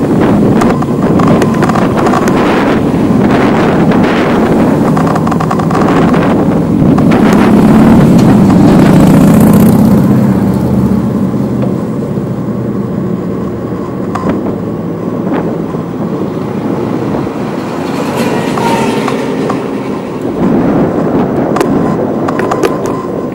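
Road traffic going by on a city street. One vehicle swells past, loudest about eight to ten seconds in, and smaller pass-bys follow later.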